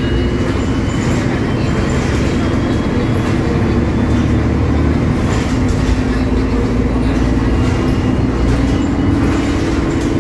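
Mercedes-Benz OM906LA six-cylinder turbo-diesel of an O500U city bus running steadily while the bus drives, heard from inside the passenger cabin together with road noise. The engine note climbs somewhat in the second half.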